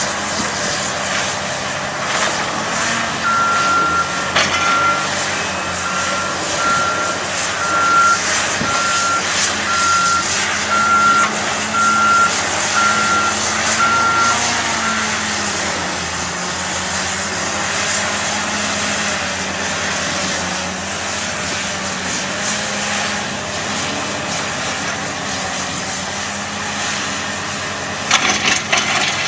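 Heavy diesel construction machinery running, its engine pitch rising and falling, with a reverse alarm beeping about once a second for around a dozen beeps. A short burst of knocks comes near the end.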